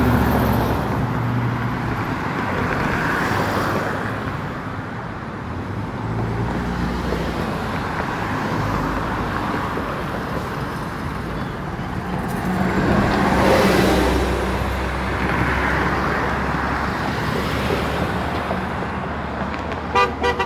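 Road traffic on a multi-lane street, cars going by one after another, with the loudest pass about two-thirds of the way through.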